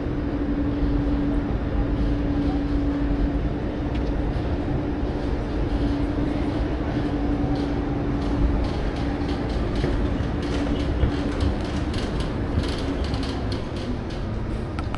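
Steady hum of a standing passenger train beside the platform, over general station noise, with a patter of light clicks in the second half.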